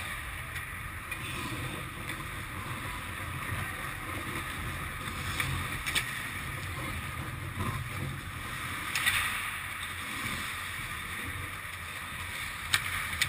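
Ice rink sound during a hockey game: the steady low hum of the rink, with hockey skate blades scraping and hissing across the ice in swells. A few sharp clacks cut through, about six and nine seconds in and again near the end.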